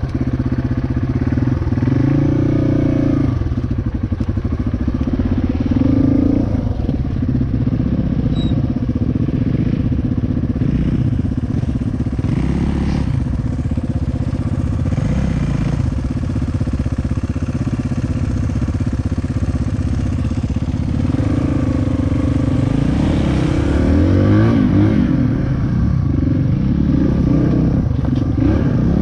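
A 450 dirt bike engine under way, revving up and falling off again and again as the throttle is worked.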